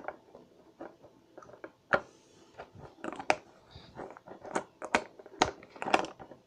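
Green glitter slime squishing with small wet clicks and pops as fingers press it down into a small glass jar. In the second half a screw lid is fitted and turned on the jar, and the clicks come thicker and sharper.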